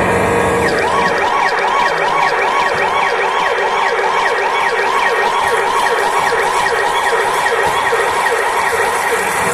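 Emergency-vehicle siren sound effect in a fast yelp, each sweep rising and falling about three times a second, starting about a second in over a steady held background note.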